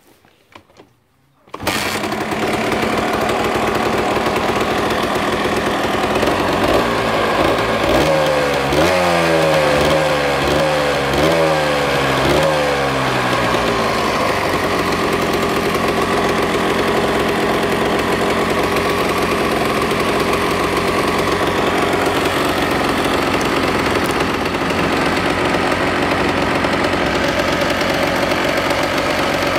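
Honda MTX 125 two-stroke single-cylinder engine firing up about a second and a half in and running, revved in about five quick blips of the throttle, then settling to a steady idle.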